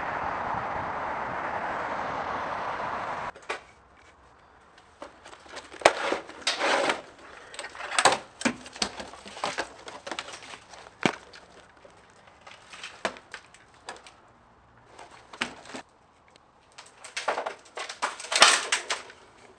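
Steady outdoor hiss of distant traffic for about three seconds, cut off abruptly. Then a quiet room with irregular footsteps, crunches and knocks on debris, in clusters.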